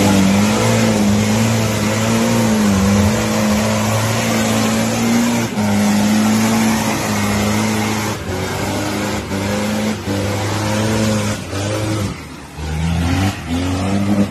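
Off-road 4x4 engine running at high revs under load as the vehicle churns through deep mud, with mud and water spraying from the tyres. The engine pitch wavers, dips about twelve seconds in, then rises again, with a few knocks along the way.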